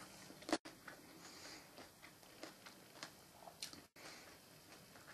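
Faint chewing and biting of a parsnip: scattered soft crunches and clicks.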